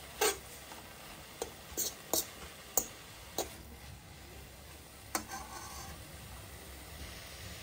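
A metal spatula tapping and scraping against a wok while greens are stir-fried. There are about seven sharp clicks over the first five seconds, over a faint steady hiss.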